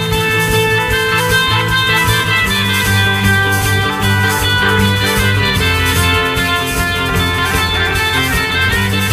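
Background music with guitar, held chords over a steady bass and beat.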